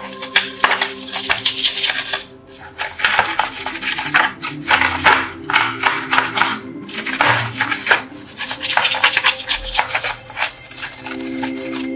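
A small bristle brush scrubbing the wet, soapy housing frame of a Marantz PMD201 radio-cassette recorder: a fast run of short scraping strokes, broken by two brief pauses.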